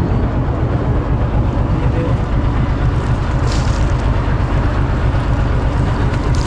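Steady low drone of a motorized bangka's engine running while the boat is underway.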